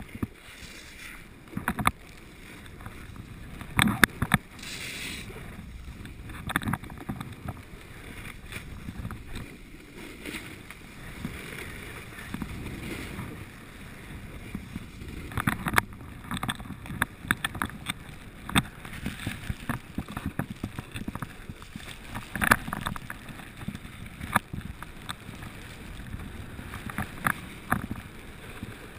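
Steady scraping hiss of sliding down packed snow on a slope, with scattered sharp knocks and clicks and some wind on the microphone.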